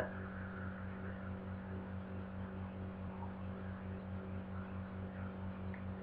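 Soft, steady hiss of Audacity-generated noise, turned down low to stand in for wind under a synthesized siren, over a steady electrical hum.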